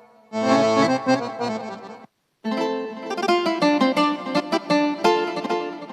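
Arranger keyboard playing a sampled accordion voice from a solo sound pack. A held chord sounds, cuts off into a brief silence, then a fast melodic run of quick notes follows.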